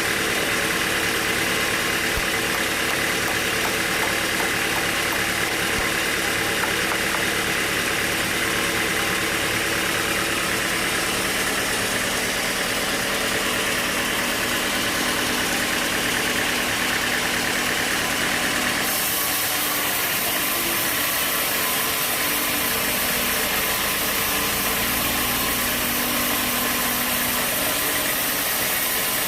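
Sawmill machinery running steadily: a motor hum with several steady tones over a constant noisy hiss. The sound changes abruptly about two-thirds of the way through, with more hiss in the highest pitches.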